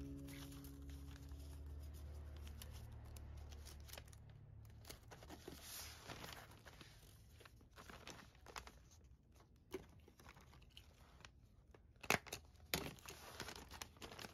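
Kraft paper mailer bag being handled and a sticker peeled from its roll: quiet paper rustling and crinkling with scattered light clicks, and a few sharper crackles near the end as the bag is moved.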